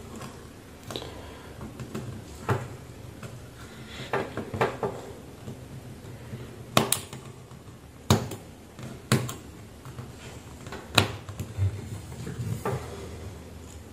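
Irregular sharp clicks and knocks, about nine in all, from pliers and a black plastic cable connector being handled and worked on, over a low steady hum.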